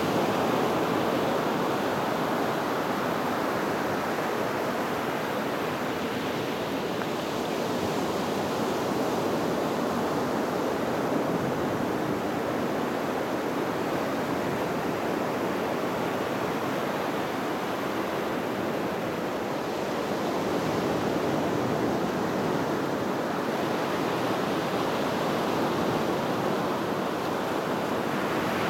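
Small ocean waves breaking and washing up a sandy beach: a steady rush of surf that swells and eases gently.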